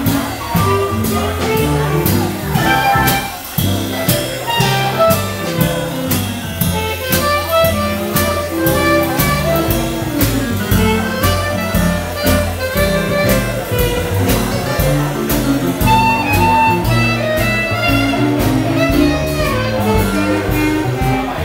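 Live jazz combo of upright double bass, electric keyboard and drum kit playing an upbeat tune, with a walking bass line under keyboard melody and a steady beat on the drums and cymbals.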